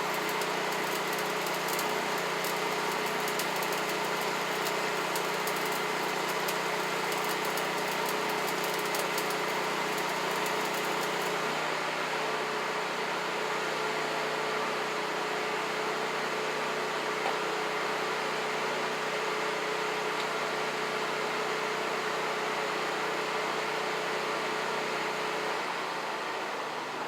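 A motor or engine running steadily, a constant hum. A high crackling hiss over it stops about eleven seconds in.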